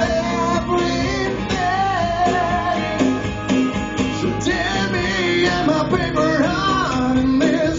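Live acoustic band playing: strummed acoustic guitars over an electric bass, with a voice singing a wavering, wordless melodic line that grows more active about five seconds in.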